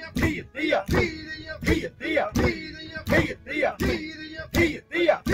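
A group of men chanting a rhythmic work call in unison while stamping together on a wooden sluice frame, a thud landing on each beat about every three-quarters of a second.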